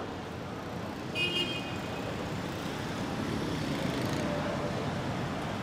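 Steady road traffic noise from passing vehicles, with a brief horn toot a little over a second in.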